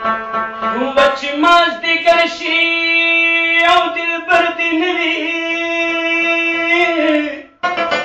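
A man sings one long held note, sliding down at the end, over a few plucked rabab strokes. Just before the end the rabab's rapid plucking starts up again.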